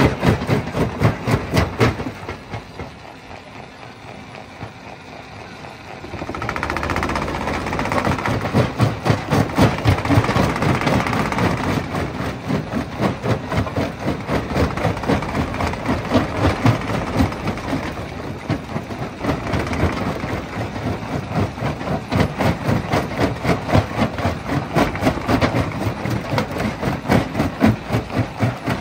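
Jaw-type rock crusher running with a rapid, even pounding of about five beats a second. It drops quieter a couple of seconds in, then comes back louder and noisier from about six seconds in and runs on.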